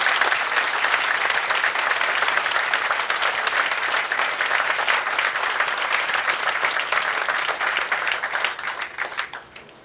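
Audience applauding steadily, dying away in the last second.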